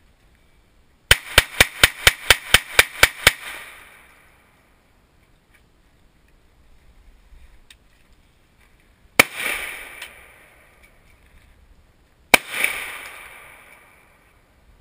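A quiet small-calibre semi-automatic pistol fired rapidly, about ten shots in just over two seconds. Then come three single gunshots a few seconds apart, each trailing off in a long echo.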